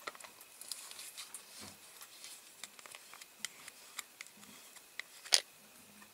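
Scattered light clicks and taps of hands handling a small diecast tractor model and its parts, with one sharper click about five seconds in.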